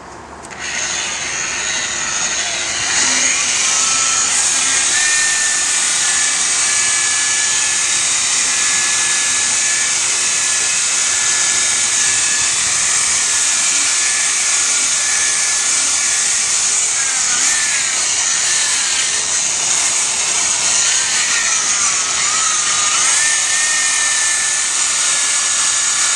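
Power tool spinning a 3-inch wool polishing pad with cutting compound against a plastic headlight lens. It starts about half a second in and runs steadily with a high motor whine that dips and recovers a few times under hand pressure.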